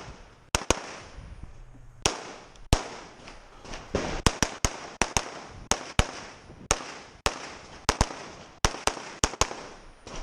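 A string of gunshots from a shooter working through a timed practical-shooting stage. About twenty sharp shots come at an irregular pace: a pair near the start, then quick clusters with short pauses between them.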